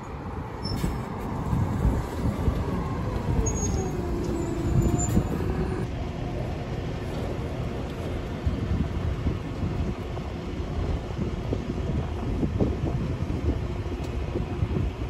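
City buses in traffic, with low engine and tyre rumble: a Volvo city bus drives past close by, its whine falling in pitch as it goes, then settling into a steady hum as another city bus approaches.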